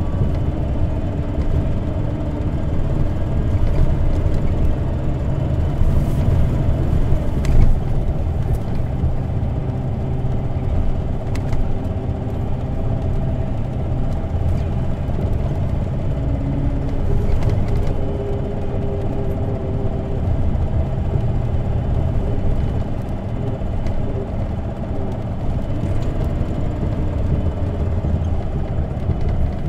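Isuzu Erga CNG city bus heard from inside the cabin while running: a steady low engine and road rumble with a faint whine, and a few short sharp rattles.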